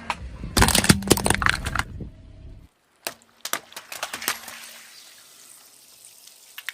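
Crackling and crunching of objects being crushed under a car tyre: a dense run of cracks near the start that tails off, a brief silence, then scattered cracks that fade away.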